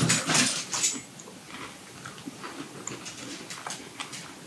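Crunching of a crisp freeze-dried strawberry being bitten and chewed: a loud crunch in the first second, then fainter crackling ticks as it breaks apart in the mouth.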